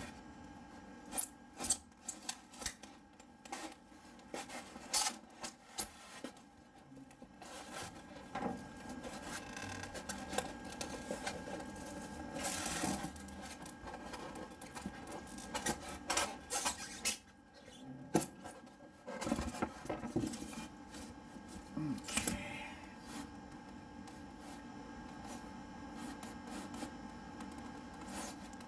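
Rigid foam board panel with a dust-port nozzle plate being slid and pushed into place by hand: irregular rubbing and scraping with scattered knocks and clicks.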